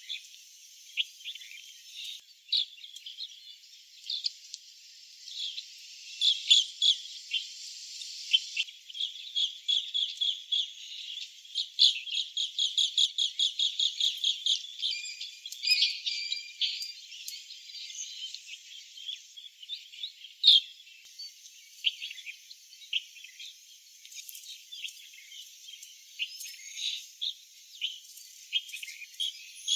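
Asian green bee-eaters calling: repeated short, high trilling chirps, with a quicker run of rapid notes in the middle.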